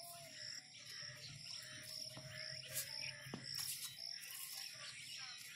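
Crickets chirping steadily, a high pulse about twice a second, with a faint, distant call to prayer from a loudspeaker held on long sliding notes beneath it.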